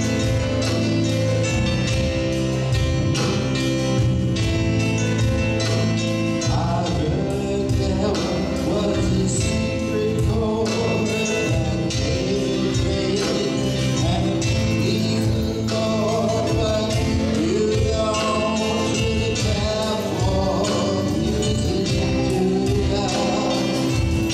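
Live band playing: acoustic guitar, electric bass, keyboard and drums, with men's voices singing from several seconds in.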